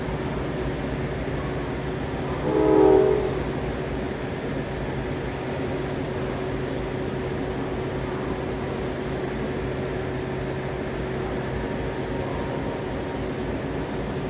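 A train horn gives one short blast about two and a half seconds in, over the steady low hum of a train standing at the platform.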